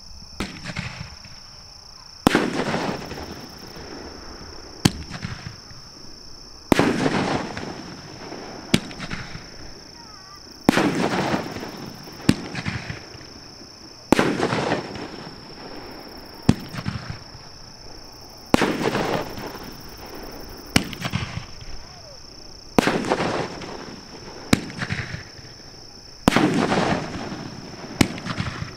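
Big Fireworks Mad Jester 500-gram 12-shot cake firing shot after shot. Roughly every two seconds there is a sharp crack, and the louder ones, about every four seconds, trail off into a couple of seconds of crackling. A steady high-pitched whine runs underneath throughout.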